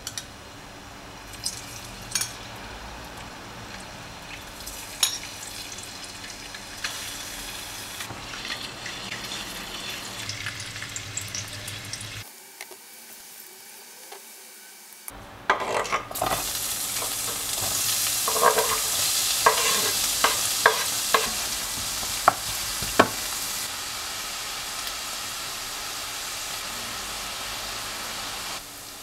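Food frying in oil in a stainless steel pan: a light sizzle with occasional clicks as boiled eggs fry. After a short break about 12 seconds in, diced onion sizzles louder, with a run of sharp pops and spatters.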